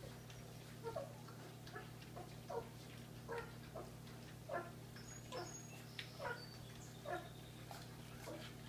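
A litter of black German Shepherd puppies eating from shared bowls, with short squeaky whimpers about once or twice a second among the eating noises.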